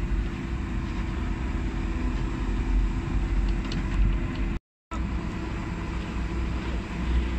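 Tractor engine running with a steady low rumble while the tractor tows the tour; the sound cuts out for a moment just past the middle.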